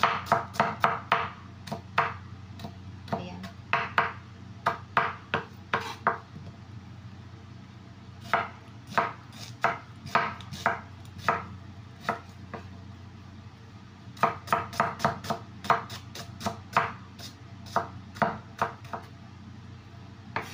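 Chef's knife chopping red onion on a wooden cutting board: quick runs of sharp knocks, a few a second, broken by short pauses.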